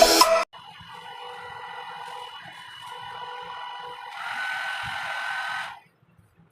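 Nova hair dryer running with a steady whir and rush of air. It steps up louder and hissier about four seconds in, then switches off abruptly near the end.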